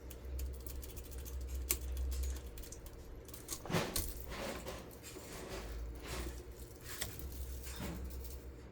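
Small metal tools and parts being handled, giving scattered light metallic clinks and rattles.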